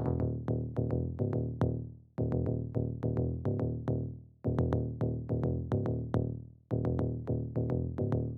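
Electronic music intro: a repeating phrase of synthesized notes, each struck and fading, starting over about every two seconds.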